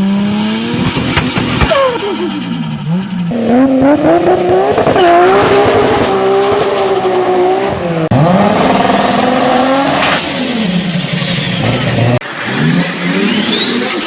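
Nissan Skyline GT-R engines revving up and falling back in a run of short clips that cut from one car to the next, with a high turbo whistle rising and falling over the revs. Between revs the turbos flutter as the throttle closes.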